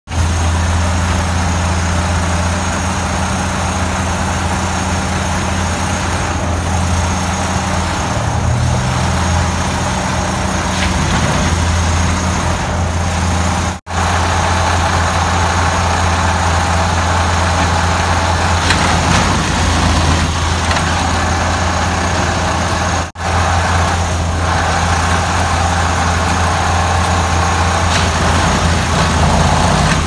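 Plasser & Theurer 08-32U track tamping machine running, a loud, steady machinery drone with a strong deep hum. It breaks off sharply twice.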